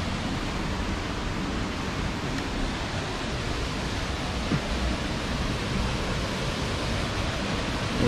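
Steady rushing of a small waterfall pouring over rocks into a pool.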